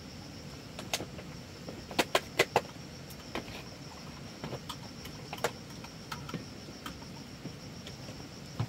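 Scattered light clicks and knocks of a plastic bottle and bowl being handled on a bamboo floor, the loudest a quick run of four about two seconds in. Under them is a steady high insect chirr.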